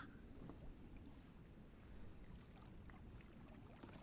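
Near silence: a faint, steady low rumble with a few small ticks.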